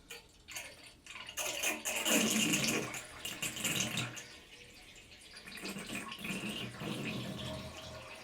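Bathtub draining: water gurgling and sucking down the plughole in uneven surges. It starts with a few sharp clicks, is loudest about two to four seconds in, eases off briefly, then gurgles on.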